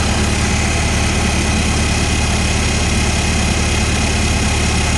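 1955 Farmall Cub's four-cylinder flathead engine idling with a steady, even beat. It is running smoothly after a fresh tune-up, no longer missing on cylinders.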